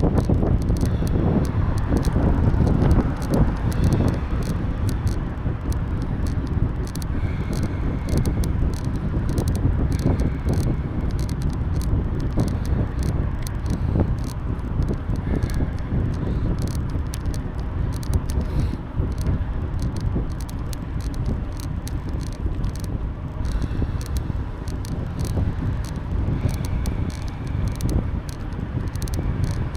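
Wind rushing over the microphone and bicycle tyre rumble, steady throughout, with frequent small clicks and rattles from the bike.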